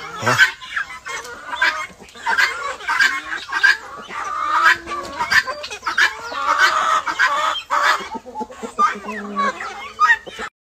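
A mixed flock of chickens and helmeted guineafowl clucking and calling, with many short calls overlapping one another without a break.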